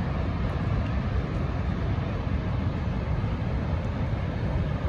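The steady low roar of Niagara Falls: a continuous, even rumble with no separate events.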